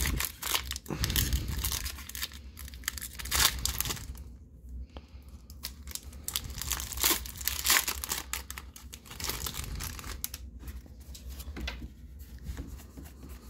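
A foil Pokémon TCG Fusion Strike booster pack being torn open and its wrapper crinkled as the cards are pulled out, in irregular bursts of crinkling.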